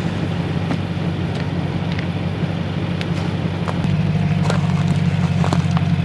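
Four-wheel-drive vehicle's engine running steadily, with scattered small clicks and knocks over it; the engine note grows louder about four seconds in.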